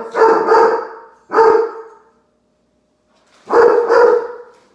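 Dog barking in short loud bursts: a quick run of barks, a pause of about a second and a half, then two more barks.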